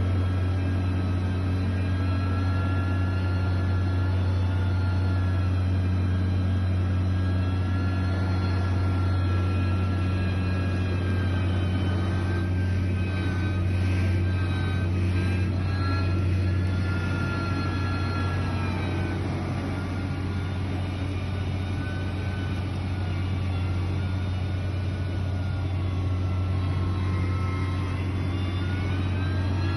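Heavy construction machine's diesel engine running steadily: a constant deep hum with a higher whine above it that wavers slightly in pitch.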